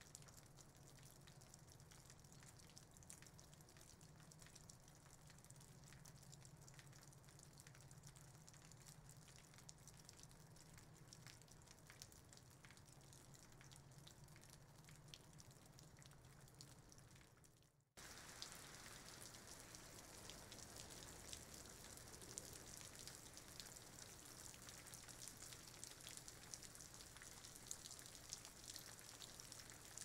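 Faint rain falling on leaves, a soft patter of many small drops. About eighteen seconds in the sound drops out for a moment and comes back slightly louder and brighter.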